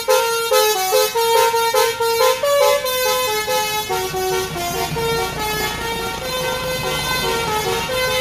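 Basuri musical air horn on a tour bus playing a melody: quick, short stepped notes at first, then longer held notes.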